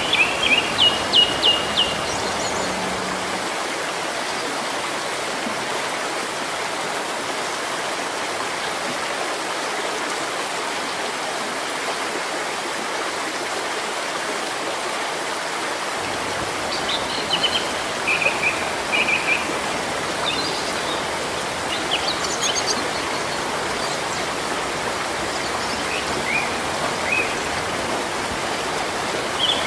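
Steady rain falling on trees and foliage. A bird chirps in short quick runs about a second in and again several times in the second half.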